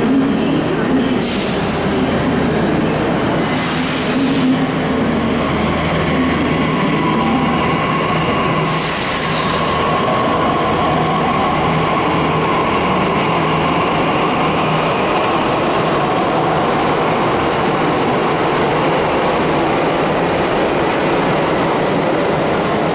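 Delhi Metro electric train pulling out of an underground station: a steady rolling rumble with a faint motor whine, and a few brief high squeals in the first ten seconds.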